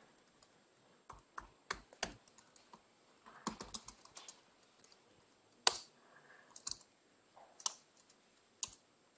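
Laptop keyboard being typed on: sparse, irregular keystrokes and taps, one a little louder a little past halfway.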